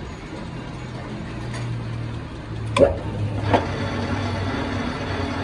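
A workshop machine running with a steady low hum, with two sharp knocks a little under a second apart near the middle.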